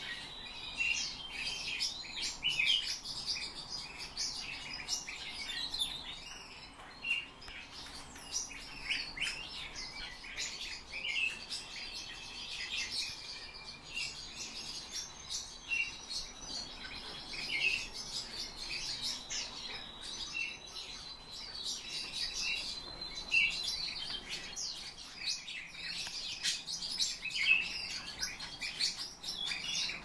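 Several pet birds chirping and calling in many short, overlapping notes, with a thin steady high tone underneath for most of the time.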